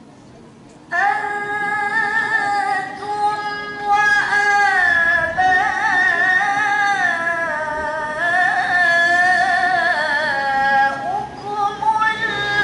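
A young woman's voice chanting Qur'an recitation (tilawah) into a microphone, coming in about a second in with one long, ornamented phrase whose pitch winds up and down.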